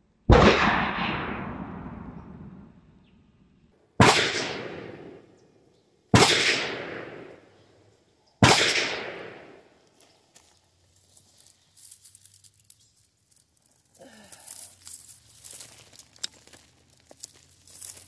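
Four rifle shots, a few seconds apart, each followed by a long rolling echo that dies away over about two seconds. Near the end, faint rustling and crackling of dry garlic leaves and stalks being handled.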